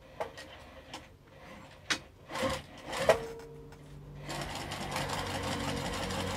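A few sharp clicks and knocks, then a domestic sewing machine stitching steadily from about four seconds in, sewing a vinyl strap connector onto a bag.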